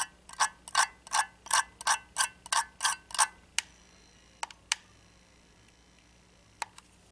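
Ceramic tweezers strummed across the wraps of a pair of alien flat-wire vape coils, giving a rhythmic series of ringing clicks about three a second for some three seconds, then a few single clicks. The strumming shakes loose shorts where coil wraps touch.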